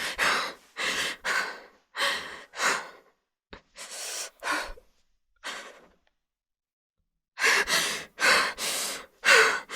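A woman breathing shakily as if frightened, in short, noisy, ragged breaths. After a pause of about a second and a half the breaths come quicker, and a short falling voiced whimper comes near the end.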